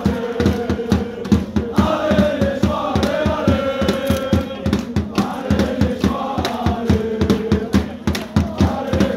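Football supporters' crowd singing a chant together, the voices holding long notes over a fast, steady beat of about four or five hits a second.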